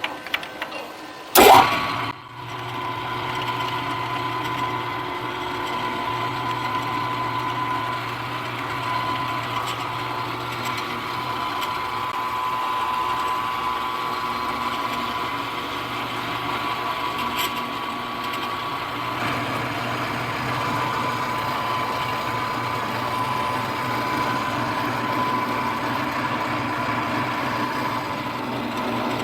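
Milling machine spindle running steadily with a constant whine, a half-inch carbide end mill finishing a stop collar's profile on a rotary table. A loud sharp clack about a second and a half in comes before the motor sound steadies, and the cutting sound changes slightly past the middle.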